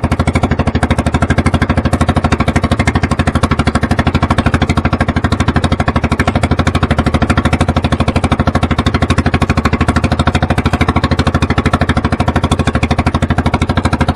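Outrigger fishing boat's engine running steadily at trolling speed, with an even, rapid pulsing beat.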